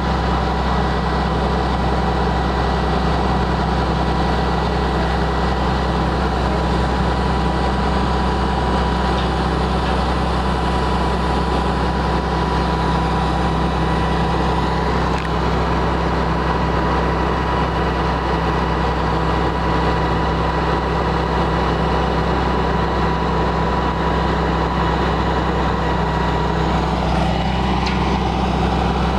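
An engine running steadily at idle: a constant low hum with a few faint, thin steady tones above it.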